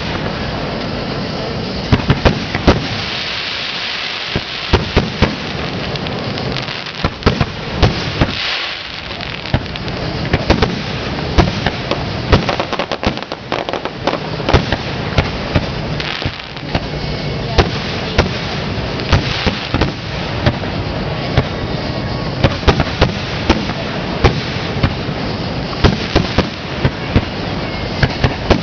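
Aerial firework shells launching and bursting in rapid succession in a finale barrage: sharp bangs, several a second at times, over a steady wash of noise.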